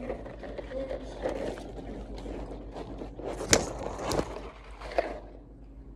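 Handling noise from the phone being picked up and repositioned: rustling and scraping, with a few sharp knocks, the loudest about three and a half seconds in.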